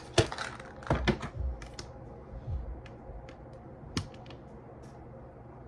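Tarot cards being handled and shuffled: irregular sharp clicks and light taps, busiest in the first second and a half, with a single louder click about four seconds in.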